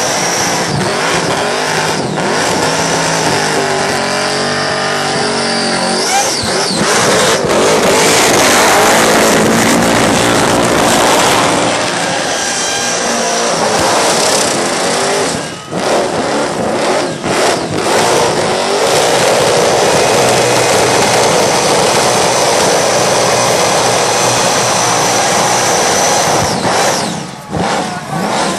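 Loud supercharged V8 of a Holden HQ held at high revs through a burnout, its rear tyres spinning and screeching on the pavement. The revs dip briefly about halfway through and again near the end.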